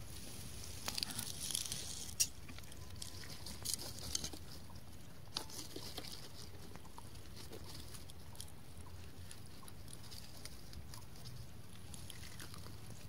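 Scattered light clicks and rustles of hands handling a freshly caught fish, mostly in the first five seconds, over a steady low rumble.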